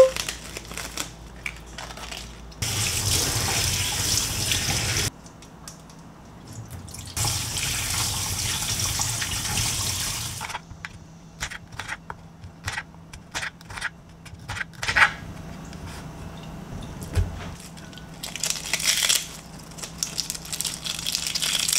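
Kitchen tap running in two spells of a few seconds each, water splashing over tofu noodles being rinsed in a mesh strainer in the sink. After that come scattered light clicks and clinks as noodles and lettuce are handled into a glass bowl.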